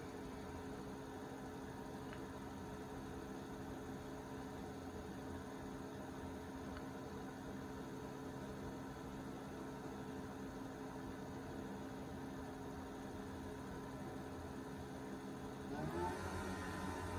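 Truma Combi 6 motorhome heater during its start-up sequence: a steady hum with a few constant tones. About a second before the end, a fan starts and spins up, rising in pitch and getting louder, then runs on steadily.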